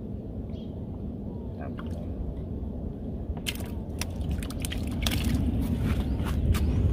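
Low steady rumble with a run of sharp crackles and wet taps in the second half, as a fishing handline is worked over the side of a wooden canoe.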